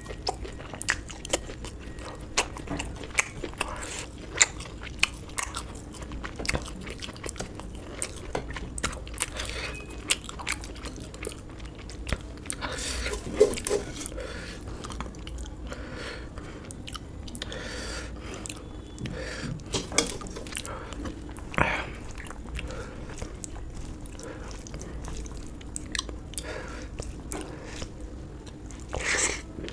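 A person eating close to the microphone: steady chewing with many sharp, wet mouth clicks and a few louder crunching bites.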